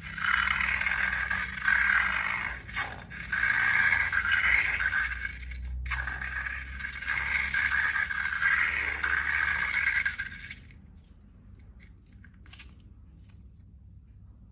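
Scraping, crackling handling noise of slime being worked with balloons, for about ten seconds, then it drops to faint scattered clicks near the end.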